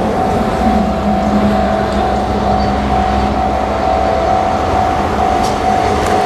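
Iwate Kaihatsu Railway DD56 diesel locomotive running steadily as it approaches hauling a train of hopper wagons. It makes a constant engine drone with a steady held whine over it.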